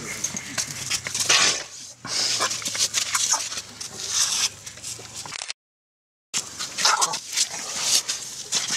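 Baby elephant giving short squeaky whimpering calls close up, among scuffling and knocks as it bumps against a wooden bench. The sound cuts out completely for under a second a little past halfway.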